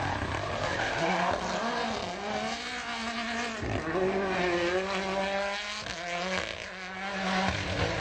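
Rally car engine running at high revs, its pitch rising and falling several times as the driver works the throttle, over loud tyre and road noise.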